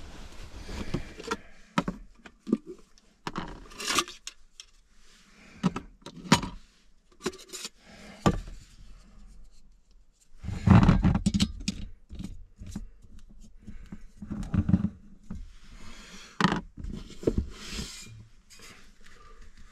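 Handling noise of camp gear: rustling and scraping of clothes and bedding with scattered clicks and knocks as Jetboil stove parts and a flask are picked up and set down, the loudest clatter of handling about eleven seconds in.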